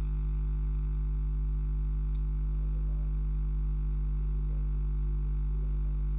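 Steady low electrical mains hum with a buzzy ladder of overtones, unchanging throughout.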